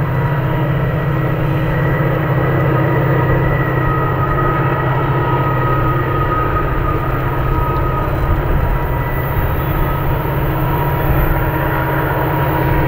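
Steady low rumble of an approaching diesel freight train that is still out of sight, with a few thin high steady tones above it.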